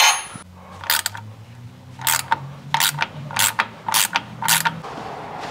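Hand ratchet on a long extension bar clicking through a series of short back-and-forth strokes, about one or two clicks a second, as a thread-locked transmission bell housing bolt is worked loose.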